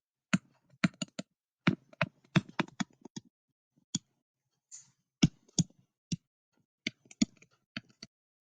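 Typing on a computer keyboard: irregular sharp keystrokes, some in quick runs of two or three, with short pauses between.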